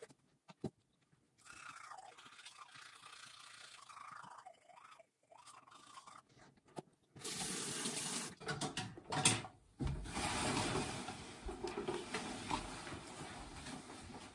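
Teeth being brushed at a bathroom sink. From about seven seconds in, a tap runs into the sink with water splashing, and there is one sharper splash or knock near the middle.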